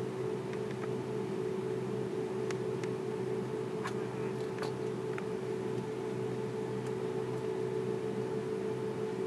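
Steady cabin hum of an Airbus A330-300 taxiing with its engines at idle, heard inside the cabin: a constant drone with a steady mid-pitched tone, and a few light clicks about a third of the way in.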